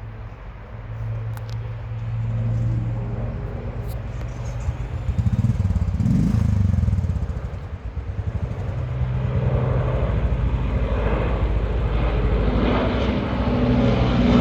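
Lancaster bomber's four Rolls-Royce Merlin piston engines droning overhead, a low steady hum that grows louder in the last few seconds.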